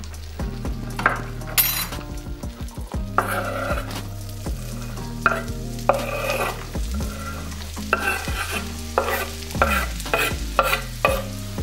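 Butter sizzling and frying in a pan, with repeated short scraping and stirring strokes. Near the end, chopped spring onions and garlic are scraped off a wooden cutting board into the sizzling pan.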